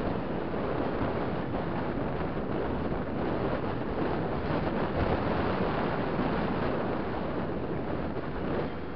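Wind buffeting the microphone of a camera on a moving off-road motorcycle, a steady rushing roar with the bike's engine and tyres on gravel blended underneath.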